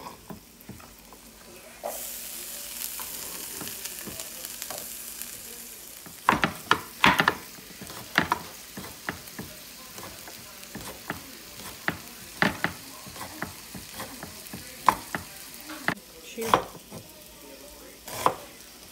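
Chef's knife chopping vegetables on a bamboo cutting board: sharp, irregular knocks, thickest from about six seconds in. Under it, a steady sizzle of peppers frying in a pan starts about two seconds in.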